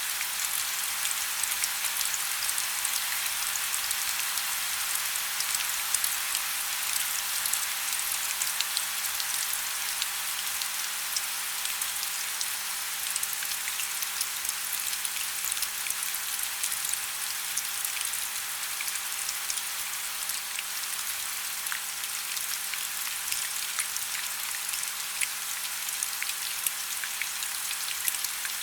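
Steady rain: an even hiss of rainfall with a dense, irregular patter of individual drops.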